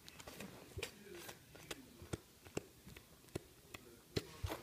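Hands handling wrapped lollipops and plush toys, making a dozen or so light, irregular clicks and rustles, with the sharpest clicks near the end.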